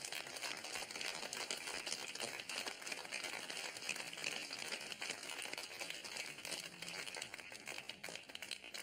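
A crowd applauding, steady clapping that dies down near the end.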